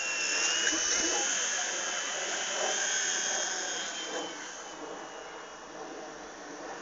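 Electric micro RC helicopter's motor and rotor whining high in flight, the pitch wavering slightly; loudest at first, then fading somewhat.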